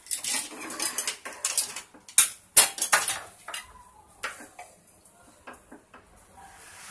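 Pressure cooker lid being opened and lifted off with metal clanks and scrapes, then a wooden spatula knocking and scraping in the cooker pot through boiled grated pumpkin. The knocks come thick and loud for the first few seconds, then thin out.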